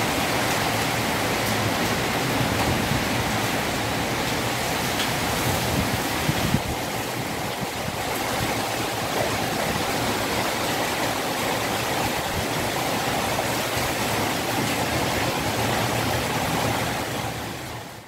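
Storm of heavy rain and wind: a steady, even rushing hiss with no breaks.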